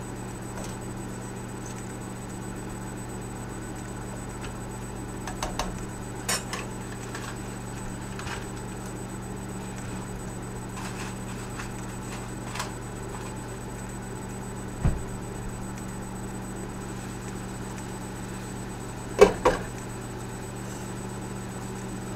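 Microwave oven running with a steady hum. A few scattered clinks and knocks, the loudest a pair of knocks near the end.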